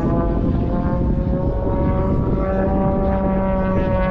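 Propeller engine of a smoke-trailing aerobatic plane droning overhead. It is a steady pitched drone that rises a little in pitch, then starts to fall near the end, over a low rumble.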